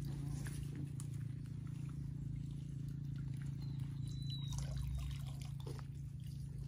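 Water splashing and trickling off a long-handled dip net as it is swept through a weedy ditch and lifted out, with small splashes and drips. A steady low hum runs underneath.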